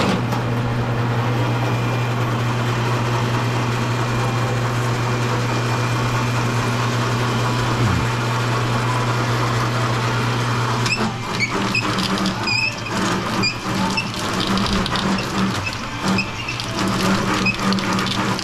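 Electric motor of an automatic copper wire stripper running with a steady hum. About eleven seconds in, irregular clicks and rattles join the hum and the level becomes uneven.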